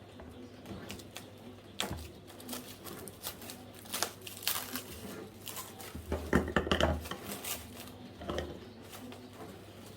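Plastic cling wrap being handled and cut with scissors over a dish: scattered crinkles and small clicks, with a louder rustle and knock about six seconds in.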